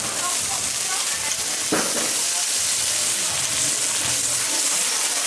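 Beef burger patties sizzling steadily on a hot flat-top griddle, with one short knock about two seconds in.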